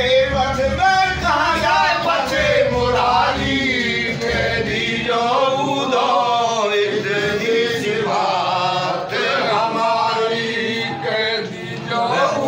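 Men singing a Hindu devotional bhajan (a Hari bhajan), with several voices in a chanted melody. A steady held note runs beneath the voices.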